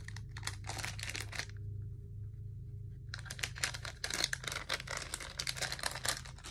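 Plastic squishy packaging crinkling and rustling as it is handled. It comes in two bouts: a short one at the start, then after a pause a longer one from about halfway.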